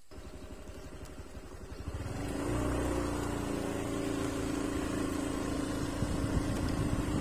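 Motorbike engine running steadily, growing louder about two seconds in.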